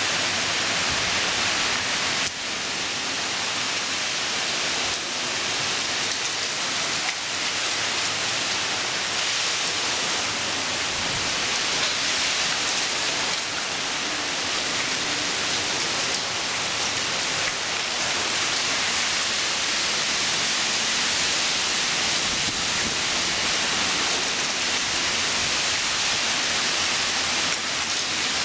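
Heavy downpour of a severe thunderstorm: dense rain pouring down in a steady, loud hiss.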